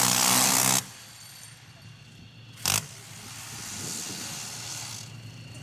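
VADS-1 six-barrel 20mm Gatling anti-aircraft gun firing a burst, a continuous rapid-fire roar that cuts off abruptly a little under a second in. A single short sharp bang follows nearly two seconds later.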